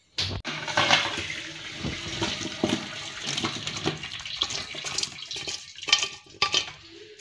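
Boiled jackfruit seeds and their cooking water poured out of a pressure cooker into a perforated metal colander: water splashing and draining through, with a few sharp knocks, two of them near the end.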